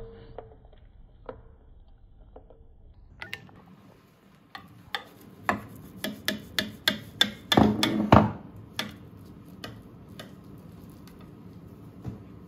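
A spoon stirring gravy in a bowl, with a few faint clinks, then a knife cutting into a baked cheese and potato pie in a glass baking dish: a quick run of sharp taps and scrapes, busiest about five to eight seconds in, thinning out after.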